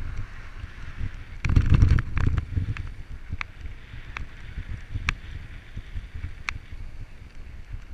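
Wind buffeting an action camera's microphone while moving along a dirt trail: a low rumble that swells about one and a half seconds in, with scattered sharp clicks and rattles.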